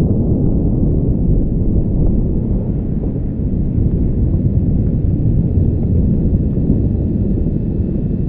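A loud, steady low rumble with no distinct bangs.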